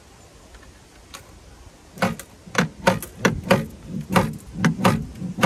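Homemade coin pusher game being worked by hand at its front knob, giving a quick series of sharp mechanical clacks, about two or three a second, starting about two seconds in.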